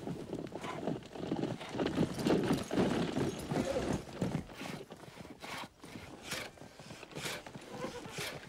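Hooves of three saddle horses walking on hard dirt, a steady uneven clip-clop, with a horse giving a short whinny about halfway through.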